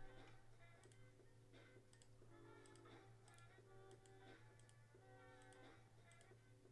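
Near silence: faint background music with a series of soft computer-mouse clicks as a list of names is randomized ten times.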